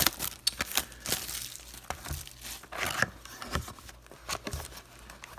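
Plastic wrapping on a box of hockey trading cards being torn and crinkled as the box is opened, in irregular short crackles.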